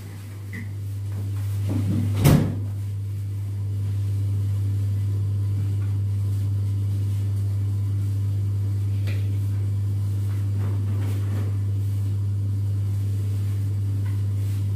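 A steady low hum, with one loud knock about two seconds in and a few faint clicks later.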